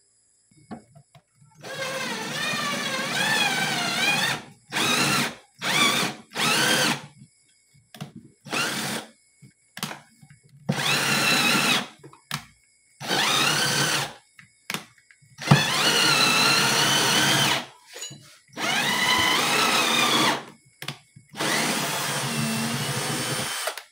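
Cordless drill motor run in about ten short bursts of half a second to two seconds, its speed rising and falling with each squeeze of the trigger. It is working a hole in the refrigerator hinge mount, cutting a screw thread.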